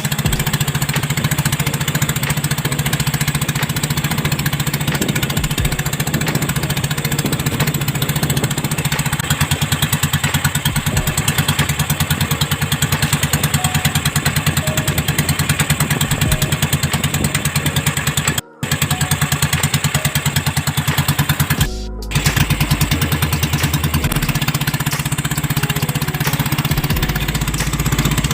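Small boat engine running steadily with a fast, even pulsing, with two brief breaks in the sound about two-thirds of the way through.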